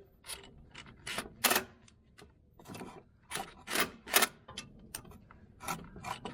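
Ratchet wrench with a 10 mm socket working loose the fastener on a starter heat shield: a dozen or so sharp clicks at uneven intervals.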